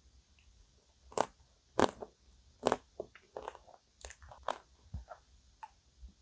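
Close-miked eating of a frozen chocolate-topped vanilla ice cream cake: about eight sharp crunches with chewing between them, the loudest in the first half.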